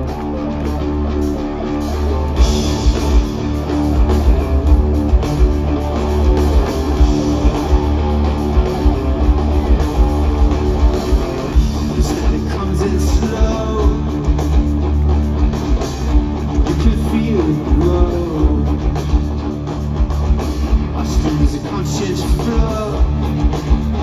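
Live rock band playing an instrumental song intro: electric guitars over drums, with a steady beat kicking in about two seconds in.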